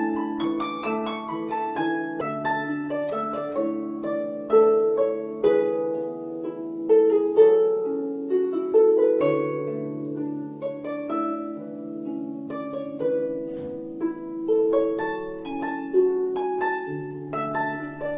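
Background music: a melody of plucked-string notes over held low notes.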